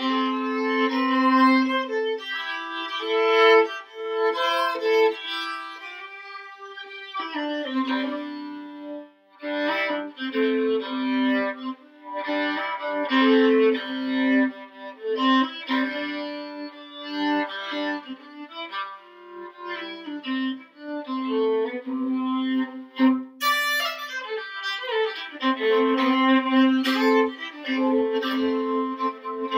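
Solo violin playing a fiddle tune unaccompanied, the bowed melody often sounding two strings at once.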